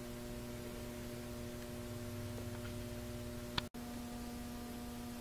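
Steady low electrical mains hum, with a faint click and a split-second break in the sound a little past halfway.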